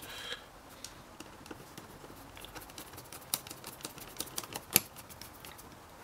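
Scattered small clicks and taps of a steel safe-lock case and its screws being handled and fitted by hand, with a couple of sharper clicks among them.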